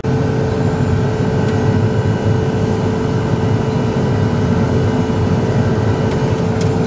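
Steady engine and cab drone inside a crop sprayer's cab as it drives across the field, with a constant hum over it.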